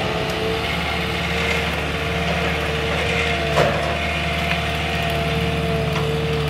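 Engine of a land-clearing machine running steadily under load, with a steady whine over it, while it pushes against a tree. A single sharp crack about three and a half seconds in.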